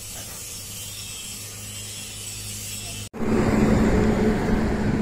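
Steady background hiss with a low hum, then an abrupt cut about three seconds in to a louder low rumble with a steady drone.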